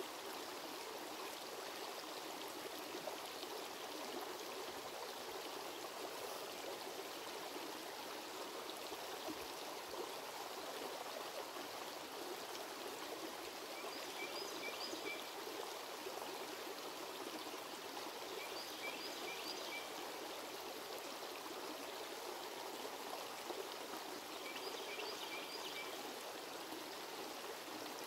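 A shallow rocky creek trickling steadily over stones, an even watery rush. Three times, about halfway in, a few seconds later and near the end, a brief group of a few quick high chirps sounds over it.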